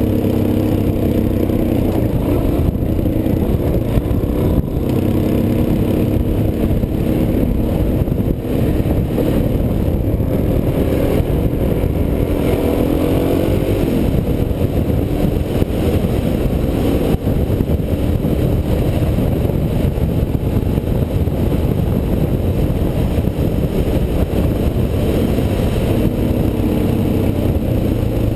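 Suzuki DR-Z400S single-cylinder four-stroke engine running under way, heard from the rider's helmet with steady wind noise; the engine note rises as it accelerates about halfway through.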